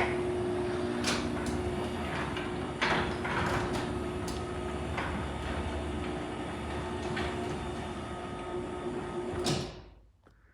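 Chamberlain Whisper Drive Plus belt-drive garage door opener running with a steady hum while the door travels along its rail, with scattered clicks and rattles from the door. The hum cuts off about nine and a half seconds in as the opener stops.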